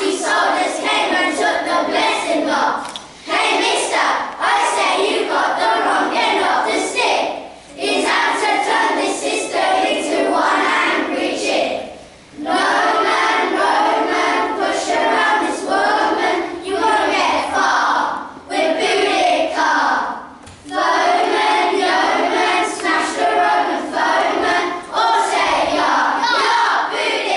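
A class of young children singing together in unison, in phrases a few seconds long with short breaks between.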